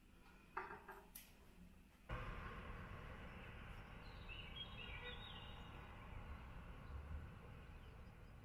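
A couple of light knocks, like a utensil or plate set down on a kitchen counter, then an abrupt switch to faint steady outdoor background noise with a few brief bird chirps partway through.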